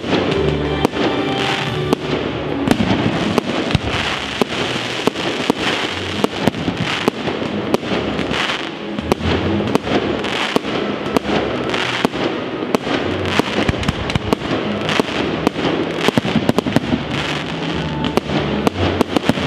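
Fireworks show: an irregular, rapid string of aerial shell bangs, many in quick succession, with music playing underneath.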